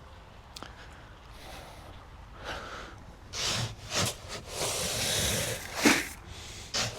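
Rustling and scraping handling noises with a few sharp clicks, louder and busier in the second half.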